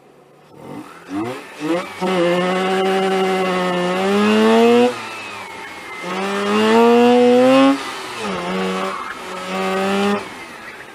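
Mazda RX-8's two-rotor rotary engine, heard from inside the cabin, launching from idle and revving hard under full throttle. Its note rises and falls three times as the throttle is lifted and reapplied through an autocross course. Tyres squeal briefly in a corner about halfway through.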